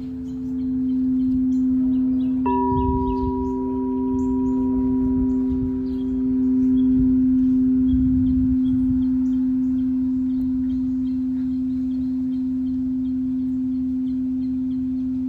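Singing bowls ringing with long, sustained tones, one low tone held throughout. A fresh bowl tone starts suddenly about two and a half seconds in and slowly fades, while small birds chirp faintly in the background.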